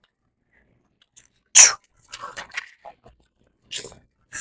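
A weightlifter's sharp, forceful breaths: one loud breath about a second and a half in, then several shorter ones, as he braces under a loaded barbell for a heavy squat.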